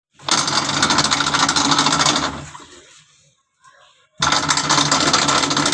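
Godrej Eon Allure Classic 7.5 kg washing machine running its wash agitation, making a loud noise in two bursts of about two seconds with a pause between. This is the noise the owner puts down to the gearbox.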